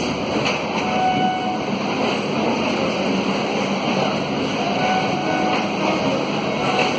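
Suburban electric multiple-unit local train rolling along the platform: a steady, continuous running noise of wheels and carriages, with two brief thin tones about a second in and again about five seconds in.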